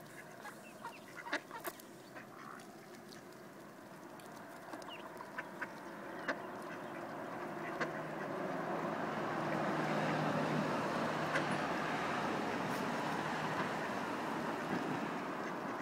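Mallard ducks feeding on bread on pavement: sharp scattered clicks of bills pecking, with some duck calls. From about halfway a steady rushing noise swells up and holds, louder than the pecking.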